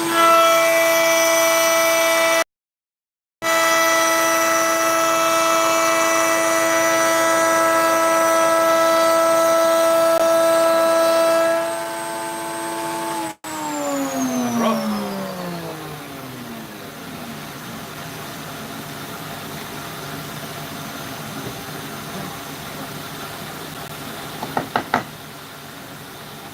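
Electric router with a spiral bit, mounted in a router table, running at a high steady pitch for about twelve seconds. It is then switched off and winds down, its pitch falling, while the dust extractor keeps up a steady hum underneath. A few light clicks come near the end.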